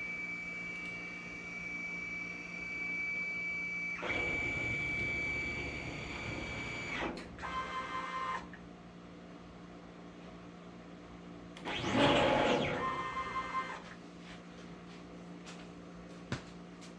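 Stepper motors of a CNC plasma table driving the gantry through a test program, with a printer-like whine. A steady high whine shifts about four seconds in and stops a few seconds later. Short stuttering moves follow, and about twelve seconds in a quick move whines up and back down in pitch.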